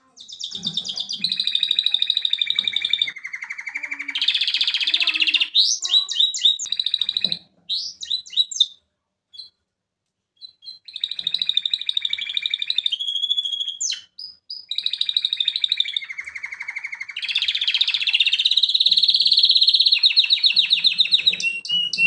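Male canary singing two long song phrases of fast trills and rolls, with a short pause about nine seconds in.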